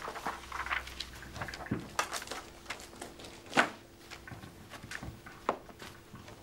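Paper pamphlets rustling and being leafed through around a table, with scattered small knocks and clicks; one sharper knock about three and a half seconds in.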